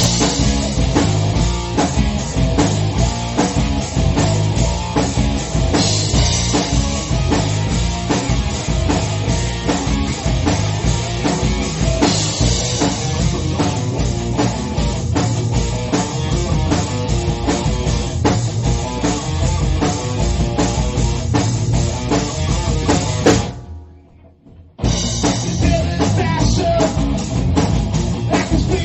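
Rock band playing an instrumental passage: distorted guitars over a driving drum kit with heavy bass drum. About 23 seconds in the band cuts out for a moment, then crashes back in.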